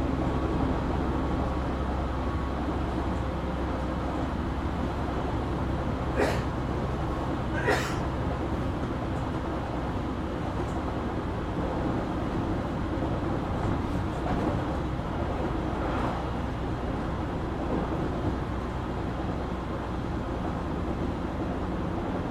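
Running sound of a JR Kyushu 817 series electric train heard from inside the car: a steady low hum of motors and wheels on rail, with two sharp clicks about 6 and 8 seconds in. This car is known for an unusual running noise, which the recordist likens to a Keio 7000 series train.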